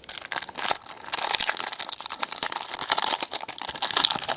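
Trading-card pack wrapper being torn open and crinkled in the hands: a dense crackling that grows fuller about a second in.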